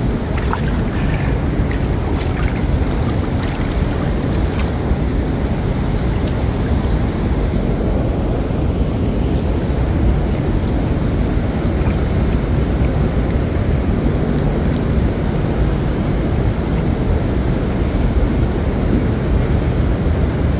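Steady low rushing noise of wind buffeting the phone's microphone, mixed with water lapping and sloshing close by, with a few faint small splashes in the first few seconds.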